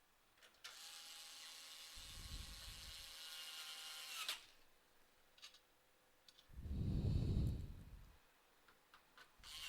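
Small electric screwdriver driving the power supply's mounting screws: a steady high whir for about three and a half seconds. A louder low rumble follows for about a second and a half, and the whir starts again near the end.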